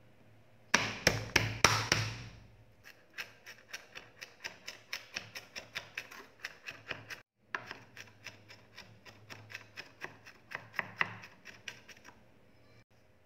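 Santoku knife crushing garlic cloves on a wooden chopping board with five heavy blows of the flat blade, then mincing the garlic with fast, even chops at about four a second. The chopping stops briefly about seven seconds in, then runs on until near the end.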